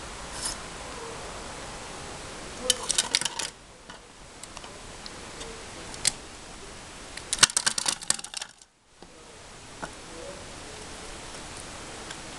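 Hard plastic pieces of a rabbit's treat puzzle toy clattering as the rabbit noses and pushes them about: two quick runs of rapid clicks, one about three seconds in and one about seven seconds in, with a few single clicks between.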